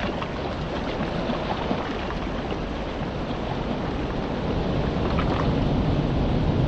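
Small waves lapping on a pebble shore with wind buffeting the microphone, a steady rushing noise that grows louder about halfway through.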